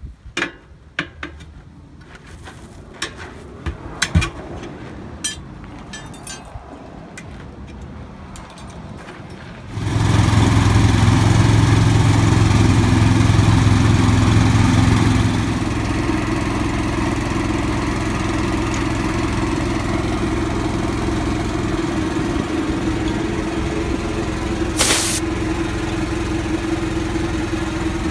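Irregular metal clinks and knocks of tire irons working a truck wheel, then a service truck's engine-driven air compressor starts abruptly about ten seconds in and runs steadily, dropping slightly a few seconds later. A short hiss sounds near the end.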